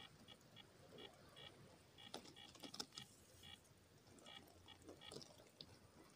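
Faint crackling clicks and rustles of dry bark and sticks being handled and placed as kindling on a stone beach, with faint groups of short high chirps.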